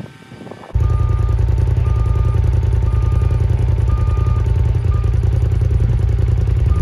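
An engine running steadily and loudly, with a machine's reversing alarm beeping about once a second. The sound cuts in abruptly under a second in, after a quieter opening.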